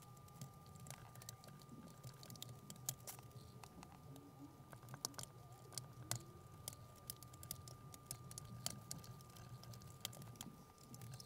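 Faint, scattered small clicks and scrapes of a chisel prying a glued-in aluminium trim insert loose from a Sonos Sub's top, worked through a cloth.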